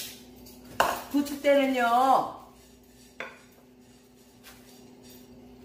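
A ceramic bowl set down on a stone countertop, giving a few sharp clinks about a second in, then a single lighter knock about three seconds in.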